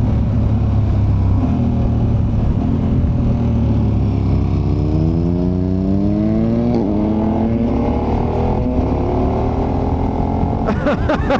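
KTM 1290 Super Adventure's V-twin engine pulling hard under acceleration, its pitch rising for a few seconds. Near the middle it breaks off sharply at a gear change, then climbs again.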